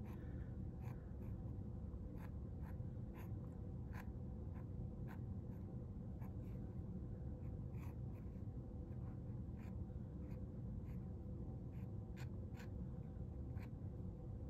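Black fine-liner pen drawing on watercolor paper: short, irregular strokes and taps of the tip on the paper, over a faint steady low hum of room tone.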